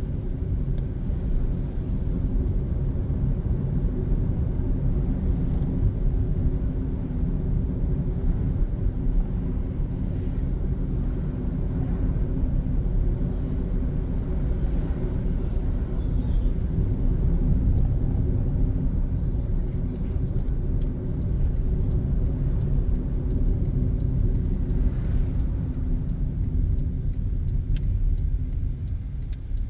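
A car driving on city streets: steady low rumble of engine and road noise with a faint constant hum.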